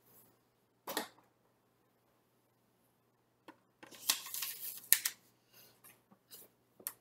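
Handling noises of teaching materials: a brief rustle of paper cards about a second in, then a louder stretch of rustling and clatter as a small whiteboard and eraser are set down on the table, ending in a sharp knock, with a few light clicks after.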